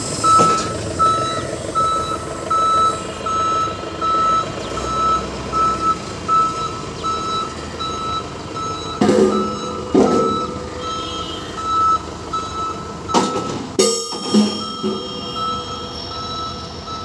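Forklift reversing alarm beeping steadily, about twice a second, over the forklift's running engine. Several loud metallic clanks in the second half, the loudest ringing on briefly.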